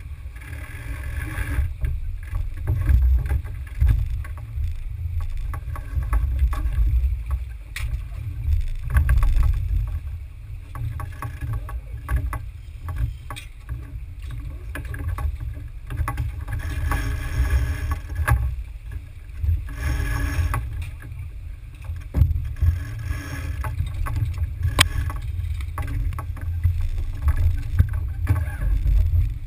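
Smaragd keelboat sailing hard: a steady, restless low rumble of wind and water rushing along the hull. A few sharp clicks and knocks come as the crew works the sheets and fittings.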